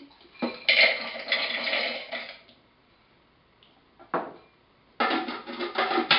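Whole raw walnuts poured into a plastic food processor bowl, rattling and clattering for about two seconds, followed by a single knock about four seconds in. About five seconds in, a dense rattling clatter starts as the processor is pulsed to chop the walnuts coarsely.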